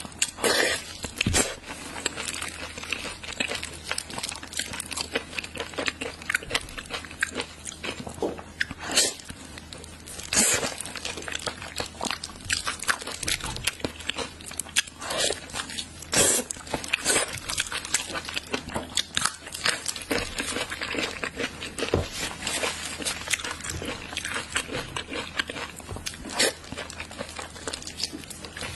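Close-miked wet biting and chewing of Chinese blood sausage, with frequent irregular smacks and sucking noises from the mouth.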